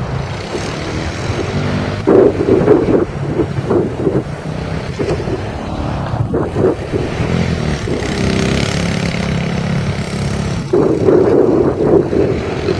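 Elstar Tank 250cc quad bike's engine running as it is ridden, with its sound rising in louder spells of revving about two seconds in and again near the end.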